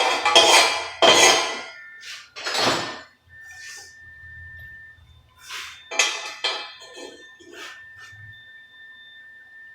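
Angle grinder cleaning up steel in short passes: loud grinding for the first couple of seconds, then shorter passes a few seconds later, with the grinder's steady high whine as it spins free between passes and near the end.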